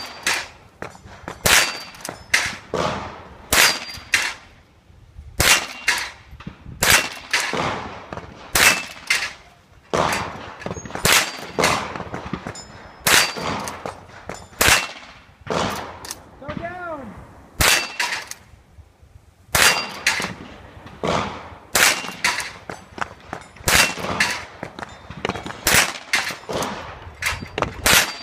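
Henry lever-action .22 LR rifle firing about thirty shots in quick succession, roughly one a second, with a short pause about two-thirds of the way through. Several shots are followed by a brief metallic ring.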